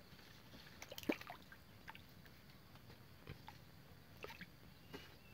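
Faint, scattered small splashes and ticks of a small hooked catfish thrashing on the line at the water's surface, the sharpest about a second in.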